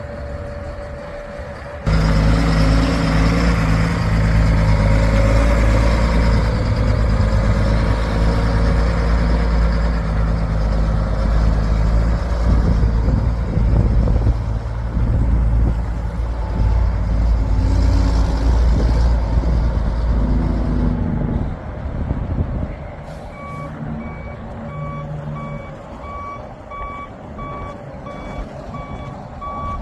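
Heavy truck's diesel engine running loud and steady, then dropping away about 21 seconds in. A reversing alarm then beeps evenly, about one beep a second, over the engine.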